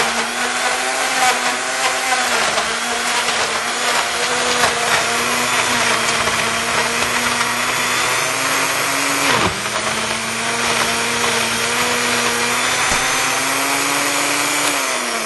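Countertop blender running steadily as it blends frozen banana chunks and blueberries into a thick shake. Its motor pitch dips briefly about nine seconds in, and it starts to wind down right at the end.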